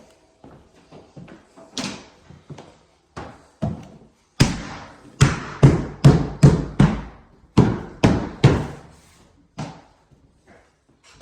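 Hammering: a series of hard, irregular knocks with short ringing decays, a few faint ones at first, then a run of the loudest blows from about four to nine seconds in before they thin out.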